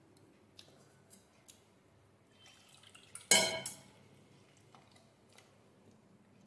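A hand stirring thick gram-flour batter in a stainless-steel pot: faint wet stirring sounds and small clicks, with one loud, ringing metallic clank of the steel pot a little past the middle.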